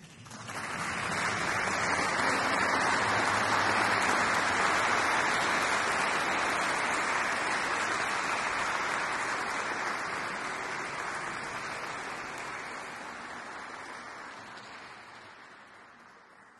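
Concert audience applauding in a strongly reverberant stone hall: the clapping starts suddenly, swells over the first couple of seconds, then slowly dies away.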